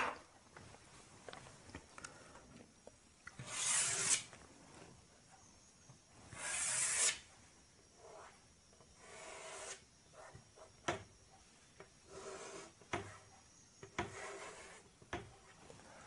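Chalk scraping across a chalkboard in about five separate strokes as a large circle is drawn. The two loudest strokes come in the first half, and a few short clicks of the chalk on the board follow later.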